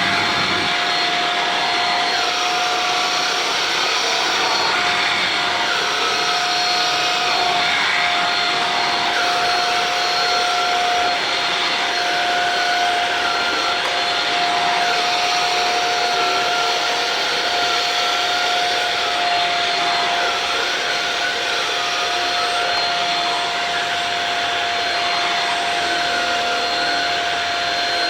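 Shark Rocket TruePet stick vacuum running steadily with its motorized mini brush tool and its suction-release valve open, pulling cat hair off loose fabric. The motor gives a steady whine with a high tone above it and a fainter tone that wavers up and down.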